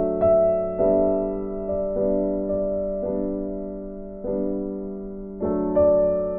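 Soft background piano music: slow chords struck about once a second, each fading before the next.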